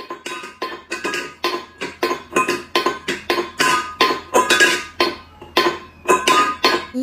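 A metal pet bowl clanking and rattling on a tile floor as a cat pushes at it with its face, about three sharp metallic hits a second, each ringing briefly at the same pitches.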